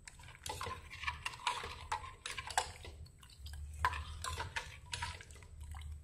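A steel ladle stirring thick rice kheer in a stainless steel pan, with irregular clinks and scrapes against the pan's bottom and sides. This is the constant stirring that keeps the milk and ground rice from catching on the bottom.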